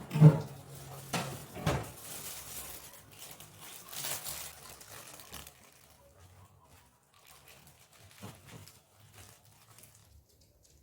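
A person coughing: a loud cough about a fraction of a second in and two more within the first two seconds, followed by quieter scattered clicks and rustling that fade to faint sounds.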